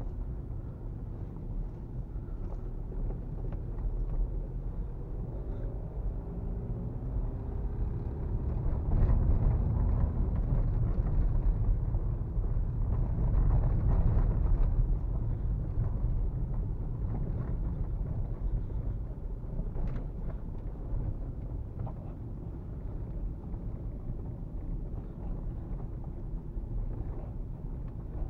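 Inside the cabin of a 1999 VW Golf Mk4 1.9 TDI crawling over a rough, muddy snow track: the four-cylinder turbodiesel running with a steady low rumble from tyres and body. The engine note rises a few seconds in, the sound grows loudest through the middle, and there are a few short knocks from the car on the ruts.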